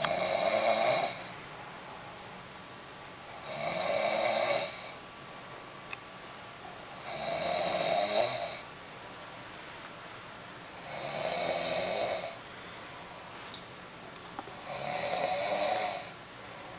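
Snoring: five loud snores, each lasting about a second and a half, at an even pace of roughly one every three and a half seconds, with quiet breathing pauses between them.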